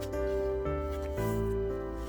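Background music: soft sustained notes changing every half second or so.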